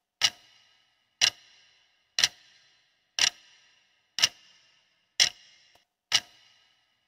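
Countdown timer clock-tick sound effect, one sharp tick about every second, seven in a row, marking the seconds left to answer the question.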